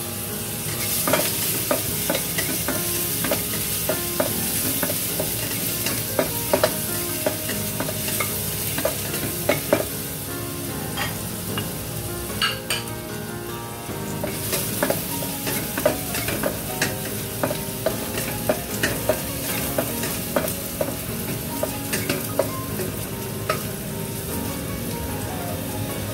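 Minced ginger and garlic sizzling in hot oil in a stainless steel wok, with a metal spoon scraping and clicking against the pan as they are stirred. The aromatics are being sautéed toward light brown.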